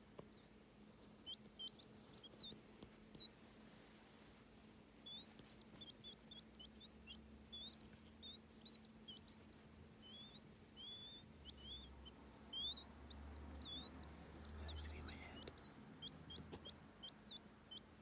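Newly hatched quail chicks peeping faintly: a steady run of short, high chirps, two or three a second, some rising and some falling in pitch.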